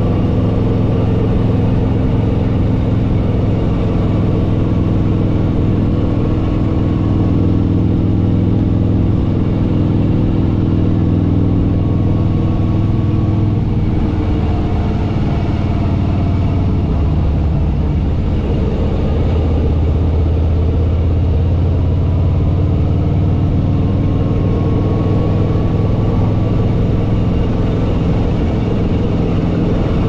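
Harley-Davidson Fat Boy Lo's V-twin engine running under way on the road. The engine note drops for a few seconds past the middle and then picks up again.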